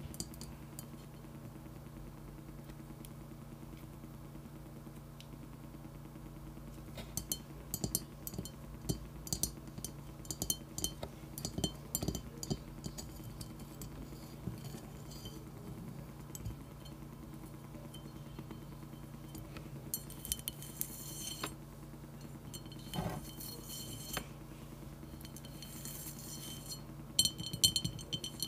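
Long acrylic fingernails tapping and clicking on a glazed ceramic money jar. The taps start about seven seconds in, come in scattered clusters, and quicken into denser runs near the end.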